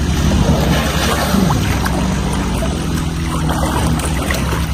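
Water sloshing and splashing in a concrete pool as an elephant rolls and bathes in it.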